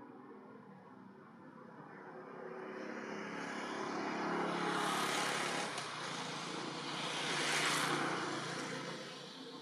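Motor vehicles driving past, a wide whooshing noise that builds up, swells loudest about five seconds in and again near eight seconds, then fades before the end.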